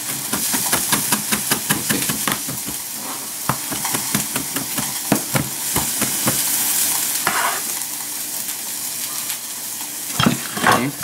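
Chef's knife chopping cilantro on a plastic cutting board: quick, uneven knife strikes for about six seconds, then fewer, with a couple of louder knocks near the end. Under it, a steady sizzle from nopales frying in a hot pan.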